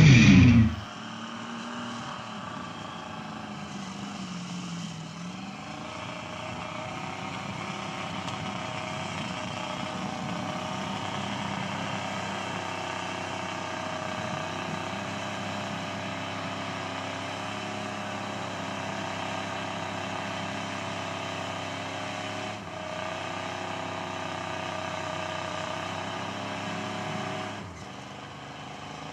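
Pickup truck engine running steadily, its pitch dipping and rising once about four to five seconds in; the engine sound falls away near the end.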